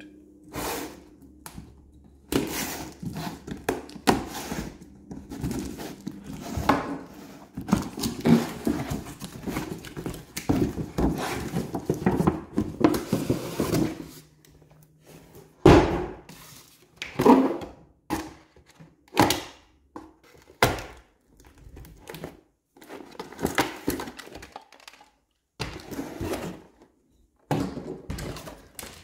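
A cardboard toy box being opened and unpacked by hand: irregular rustling and scraping of cardboard and packaging, broken by knocks and thunks as the box is tipped over and set down on a wooden tabletop.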